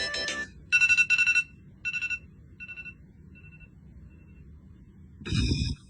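Electronic phone ringtone: a quick melody ends about half a second in, then a two-pitch electronic tone repeats about five times, fading away like an echo. Near the end comes a short louder sound with a deep low part.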